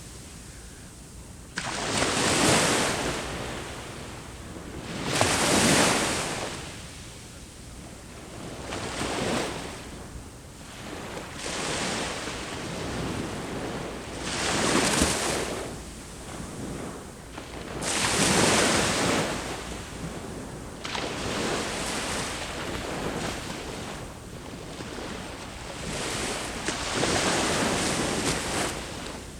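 Ocean waves breaking on the shore, a rushing surge that swells and fades about every three to four seconds.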